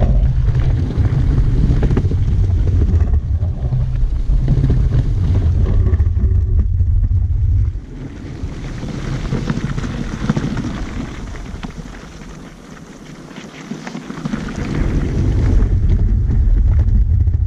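Wind buffeting the microphone of a camera riding on a moving dog sled, with an even hiss from the sled travelling over packed snow. The low buffeting drops away about halfway through, then comes back near the end.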